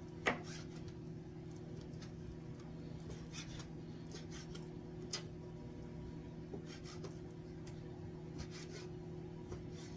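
Ceramic knife cutting raw chicken breast into chunks, its blade knocking and scraping on a cutting board in a dozen or so short, irregular strokes, the sharpest about a third of a second in. A steady low hum runs underneath.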